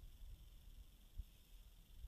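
Near silence: a faint, uneven low rumble with one short low thump about a second in.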